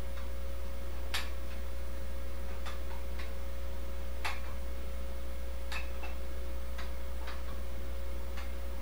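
Sharp metallic clicks from a dumbbell, about eight at uneven intervals a second or so apart, as it swings through repeated curls, over a steady low hum.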